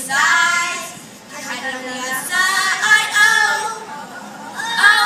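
Children's glee club singing a pop song, three short sung phrases with brief dips between them.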